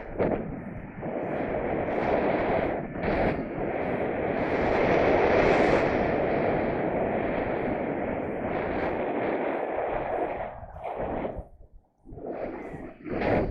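Strong wind buffeting the microphone: a loud, gusting rumble that swells and eases, dropping out briefly near the end.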